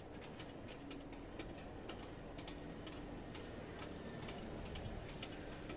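Level crossing bell ringing faintly in quick, regular, sharp strikes, about four a second, while the barrier arms rise.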